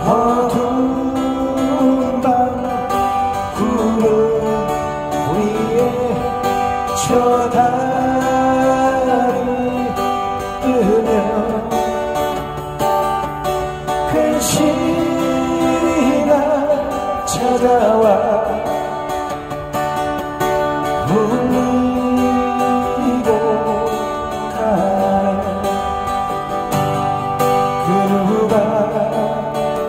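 Live acoustic busking: two acoustic guitars strummed while men sing a Korean song through microphones and a small amplifier.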